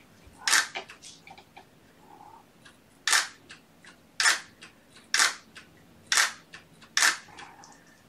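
DSLR camera shutter firing six single shots: one near the start, then five about a second apart.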